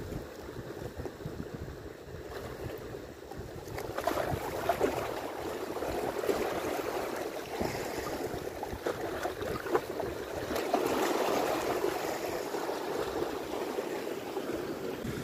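Choppy sea waves washing and splashing against the shore, a steady wash that grows louder about four seconds in.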